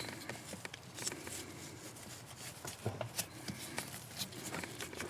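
Faint handling noises: scattered light clicks, taps and rustles of hands working with tools and parts.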